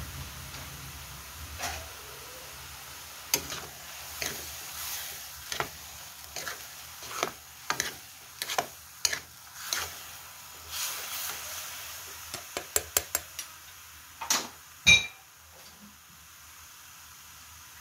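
A cooking utensil scraping and knocking against a metal wok while rice noodles are tossed in it: irregular scrapes and clinks about once or twice a second, with a quick run of clicks and then one loud metallic clang that rings briefly near the end.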